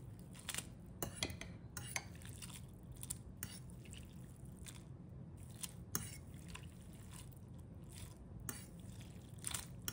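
Cooked ramen noodles lifted on a fork and dropped back into a bowl of water: faint, irregular drips and small splashes.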